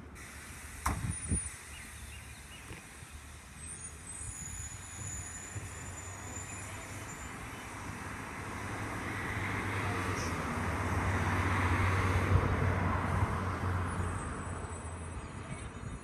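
A car driving past on the street, its tyre and road noise swelling over several seconds and fading again near the end. Two short knocks about a second in.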